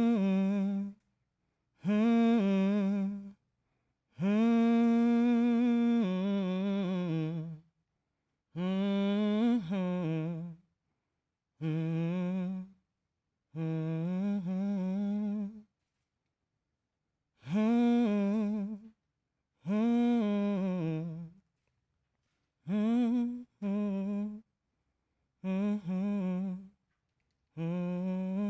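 A man's voice humming a slow wordless tune in about a dozen short phrases, each one to three seconds long with brief pauses between, its pitch sliding up and down.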